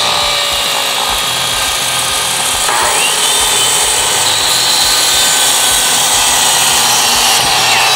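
DeWalt compound miter saw running and cutting through a 4x4 wooden post: a loud, steady motor whine over the noise of the blade chewing through the wood. The whine shifts about three seconds in.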